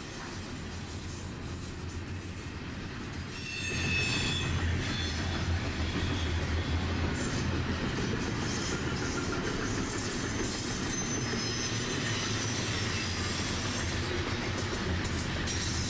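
Train running on its rails: a steady low rumble that gets louder about three and a half seconds in, with high wheel squeals over it.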